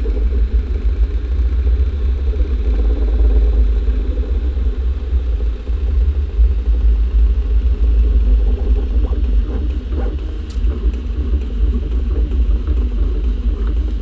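Original Prusa i3 MK3S 3D printer printing: the X- and Y-axis stepper motors drive the print head and bed, giving a steady low rumble with a mid-pitched hum that wavers as the moves change.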